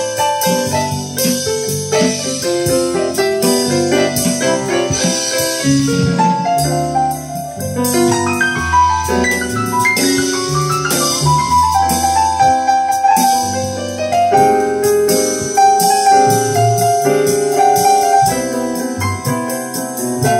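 Jazz recording played back on a hi-fi system: piano carrying the melody over a walking bass, with cymbal strokes keeping steady time.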